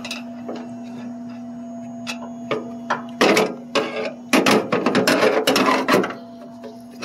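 A hand tool clicking and scraping against the metal parts inside a drink vending machine while working at a Phillips screw, with a longer spell of rattling and scraping about four seconds in, over a steady hum.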